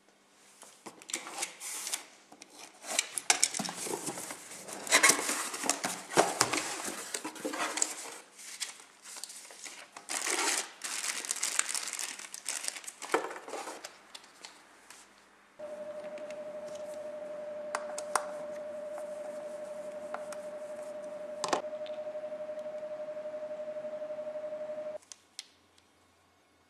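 Cardboard box and packing material handled while a brush-cutter trimmer head is unpacked: irregular bursts of crinkling, rustling and tearing. About halfway through, a steady mid-pitched hum with a faint hiss starts abruptly, runs about nine seconds and cuts off sharply.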